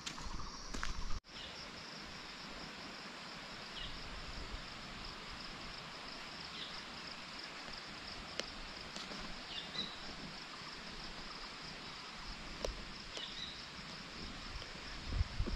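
Outdoor forest ambience: a steady high insect drone over an even rushing hiss, with a few short bird chirps scattered through. The sound changes abruptly about a second in, and a low rumble comes in near the end.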